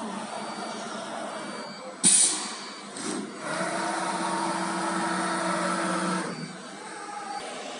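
Automatic-tool-change wood CNC router working: a short, sharp blast of compressed air about two seconds in, then a steady motor whine for nearly three seconds that stops about six seconds in.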